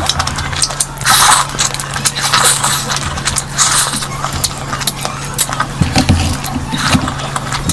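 Close-miked eating: chewing and mouth smacking with many quick clicks and scrapes, as of eating curry and rice.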